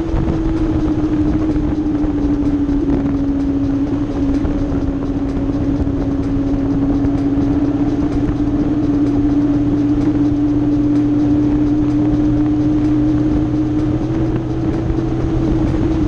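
Honda Gold Wing motorcycle cruising at a steady speed: an even engine drone with wind and road noise over it, its pitch dipping slightly a few seconds in and edging back up near the end.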